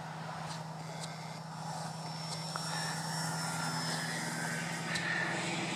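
Electric motor and propeller of a ParkZone T-28 Trojan radio-control model plane on a low pass, a steady hum with a faint high whine, growing louder about two to three seconds in as the plane comes by.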